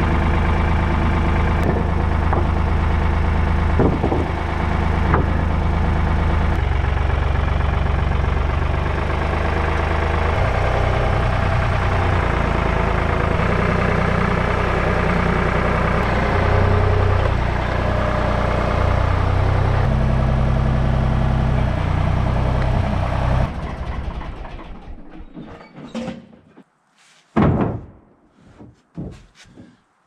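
Tractor engine running while it carries a load of lumber on its loader forks, its speed changing a few times. The engine cuts off about 23 seconds in, followed by a few scattered knocks.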